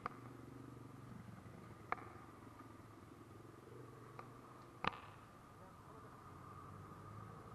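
A dog eating dry kibble from a small paper tray, with four sharp clicks of kibble and tray, the loudest about five seconds in, over a faint steady hum.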